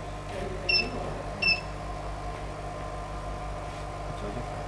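Two short, high electronic beeps about three-quarters of a second apart, a second or so in, over a steady low hum.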